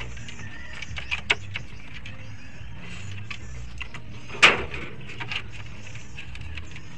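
A fork picking at food in a cardboard container makes small scattered clicks and taps, then one loud sharp click about four and a half seconds in as the food is put in the mouth. A low steady rumble runs underneath.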